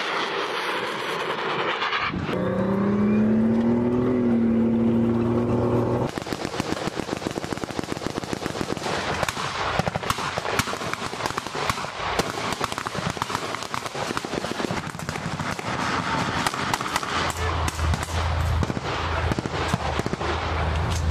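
Rapid small-arms and machine-gun fire, many shots overlapping in quick succession, starting a few seconds in and running on. Before the shooting there is a wavering pitched drone, and near the end a steady low rumble joins the gunfire.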